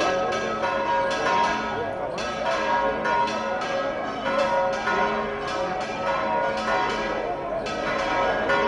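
Church bells pealing in rapid, repeated strokes, each ringing on into the next, over the murmur of a crowd.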